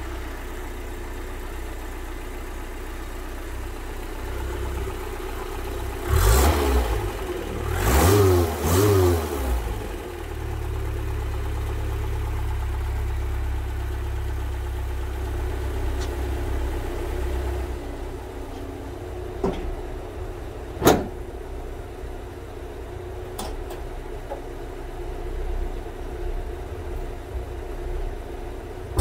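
A 1976 Toyota Celica ST's 20R four-cylinder engine idling as it warms up from a cold start. About six seconds in it is blipped three times in quick succession, each rev rising and falling, before it settles back to a steady idle. A single sharp click comes about two-thirds of the way through.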